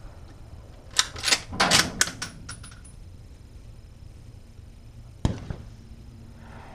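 The bolt of a Ruger Precision Rifle being worked: a quick run of sharp metallic clicks with a short sliding rattle, then a single sharp knock about five seconds in.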